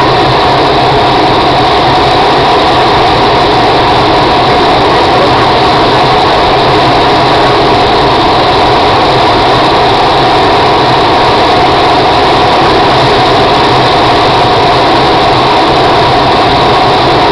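Loud, steady rush of airflow inside a glider's cockpit on aerotow, with the steady drone of the towplane's engine ahead.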